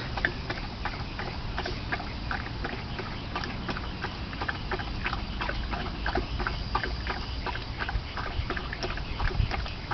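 Dog lapping water, a steady run of quick wet laps about three to four a second.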